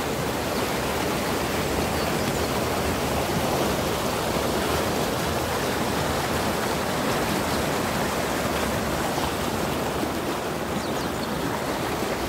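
Muddy floodwater rushing and churning out of a concrete culvert: a steady, unbroken roar of fast-moving water.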